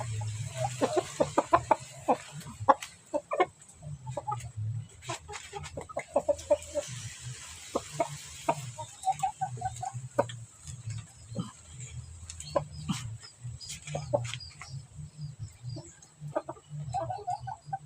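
A chicken sick with ngorok, the snoring respiratory illness of chickens, clucking in short, repeated calls mixed with sharp clicks, over a steady low hum.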